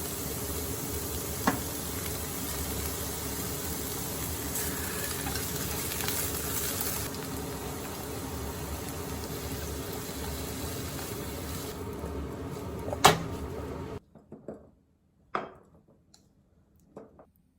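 Food sizzling in a frying pan, a steady hiss with a few utensil knocks against the pan, the loudest a little before the end of the sizzling. The sizzling cuts off abruptly about three-quarters of the way through, leaving only a few soft clinks.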